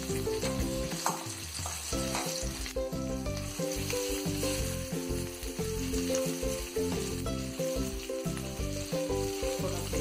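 Pomfret fish shallow-frying in hot oil, a steady crackling sizzle that flares briefly around one and two seconds in as a second fish goes into the pan. Soft background music plays underneath.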